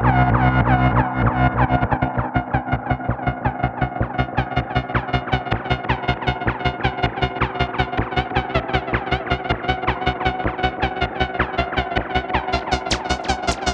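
Novation Bass Station 2 analogue synthesizer with its envelope retriggering in a loop, giving a rapid pulsing drone of about five pulses a second through a Space Echo–style tape-delay effect. A steady low bass tone breaks into pulses about a second in. Each pulse carries a short falling sweep, and the pulses turn brighter and clickier near the end.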